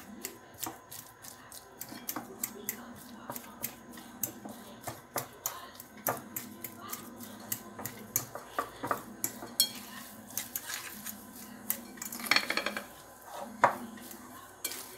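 Metal fork mashing boiled potatoes in a glass bowl: quick repeated clicks and taps of the fork against the glass, several a second, with a few louder clinks near the end.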